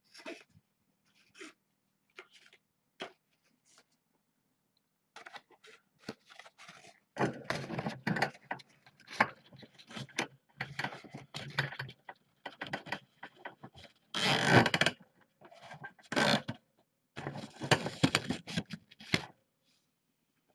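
Stiff posterboard being handled and fitted: a few light clicks and taps, then a long stretch of rustling and scraping, loudest about two-thirds of the way through.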